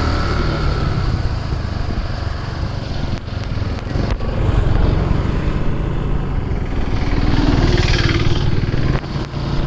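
Motorcycle engine running steadily while under way, a low hum under a broad rush of road and air noise; a brighter hiss swells briefly about eight seconds in.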